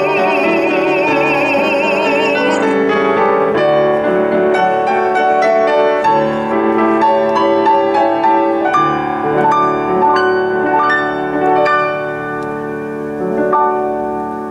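A baritone voice holds a final sung note with wide vibrato over a Yamaha grand piano, and the voice stops about two and a half seconds in. The piano then plays on alone, a slow passage of single struck notes and chords.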